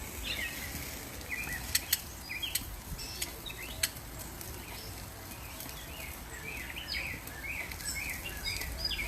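Small birds chirping repeatedly in short, quick chirps, with a few sharp clicks or pops in between over a steady low rumble.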